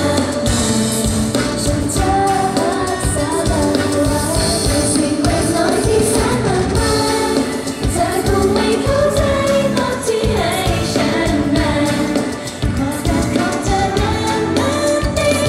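Live Thai pop song: a girl group singing together into microphones over a live band with drums, electric guitar and keyboard, through the stage sound system.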